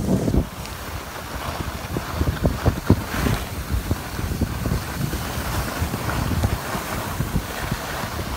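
Wind buffeting the microphone of a camera moving downhill on skis, in uneven gusts, over the hiss of skis sliding on packed snow.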